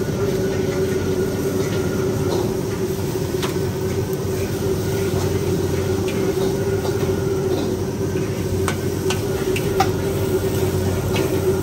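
Steady rushing noise of a gas wok burner under a wok of frying noodles, with a few sharp clinks and scrapes of a metal spatula against the wok.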